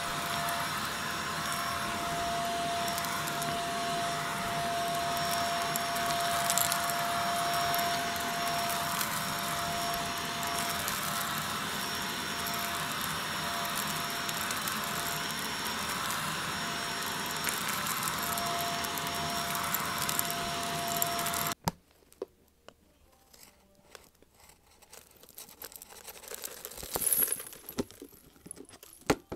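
Shark Navigator vacuum running steadily with a constant motor whine as its hand tool works a shag rug; the sound cuts off suddenly about two-thirds of the way through. Near the end, small rubber bands and dirt are poured from a plastic container onto the rug, with scattered clicks and a brief swell of noise.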